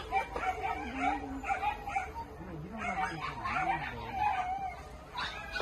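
Dogs whining, a string of wavering, pitched cries one after another.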